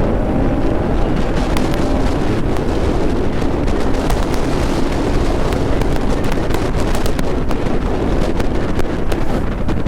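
Bajaj Pulsar NS200 single-cylinder engine running at road speed under heavy wind noise on the helmet microphone, the engine note gliding slowly in pitch in the first couple of seconds.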